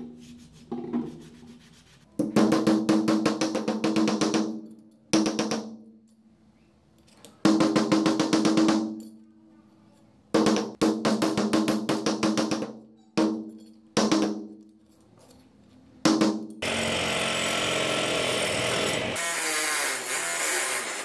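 Flurries of rapid hammer taps on a steel block, ringing with a steady metallic tone, in six runs of up to two seconds each. From about three-quarters of the way in, a bench buffing wheel runs steadily against a steel cleaver blade.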